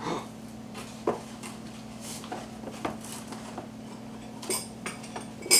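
Cardboard packaging being handled: scattered light knocks, taps and rustles, over a faint steady hum.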